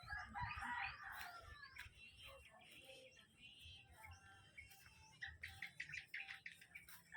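Several birds chirping and calling together, a busy mix of short quick chirps that overlap throughout.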